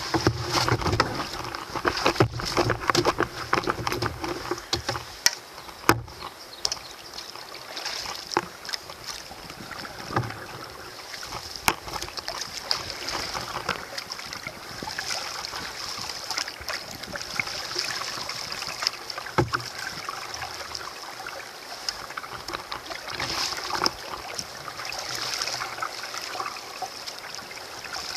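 A solo canoe being pushed off and paddled on calm river water: paddle strokes splashing and dripping, with occasional sharp knocks, over a steady high-pitched hiss.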